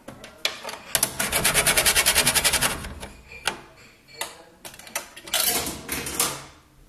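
Coins being fed into a coin-operated cigarette vending machine: scattered clicks and clinks, a run of rapid even clicking about ten a second lasting under two seconds, and a rattling burst near the end.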